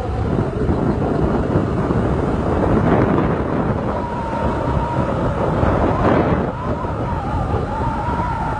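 Heavy wind buffeting the microphone of a motorbike rider on the move, mixed with the bike's running and road noise. About four seconds in, a thin wavering whine joins the noise.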